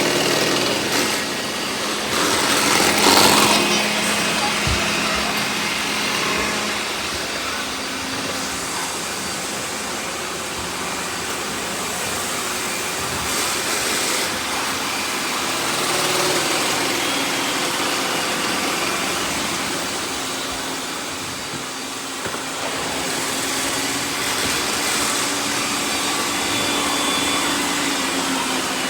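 Several robot vacuums running at once: a steady blend of suction-motor whine and brush noise, with a brief louder swell about three seconds in.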